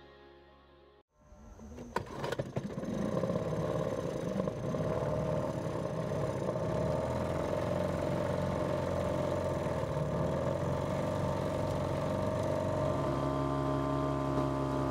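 Outboard motor of a small wooden river boat running steadily under way, starting abruptly about a second in.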